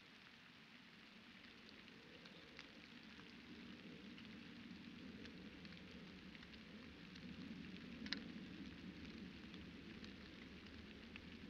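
Faint light rain pattering, with scattered drops ticking close by and one sharper drop tick about eight seconds in.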